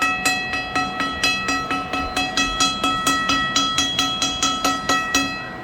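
Electric fire alarm bell ringing under test: a steady run of rapid, evenly spaced strikes with a bright metallic ring, cutting off shortly before the end.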